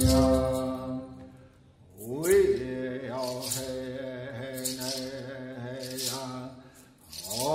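Live Hopi song with string accompaniment: a held phrase fades out about a second in, and after a brief near-silence a new chanted phrase enters with an upward slide into wavering held notes, with another upward slide near the end.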